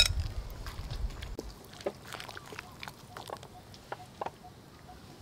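Metal tongs clink sharply against the cookware at the start, followed by a few light taps. After that, faint short clucks of chickens or other fowl are heard in the background.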